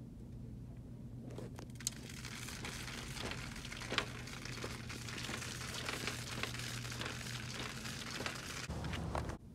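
Plastic shopping cart being pushed along a store floor: wheels rolling and the basket rattling, with scattered clicks and knocks over a low steady hum. The rattle builds about a second and a half in and cuts off suddenly near the end.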